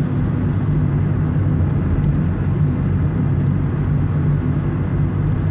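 Honda Fit Hybrid running through a Kakimoto aftermarket muffler while driving along, a steady low engine and exhaust hum mixed with tyre and road noise.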